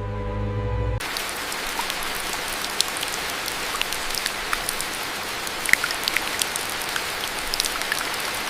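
Steady rain falling, an even hiss scattered with many small individual drop ticks, starting abruptly about a second in as a held chord of background music cuts off.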